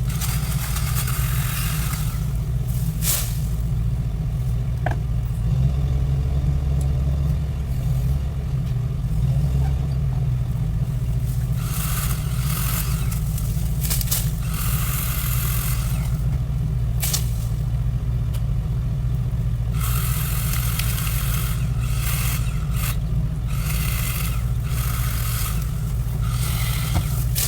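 A vehicle engine runs steadily with a low rumble, with bursts of hissing noise every few seconds.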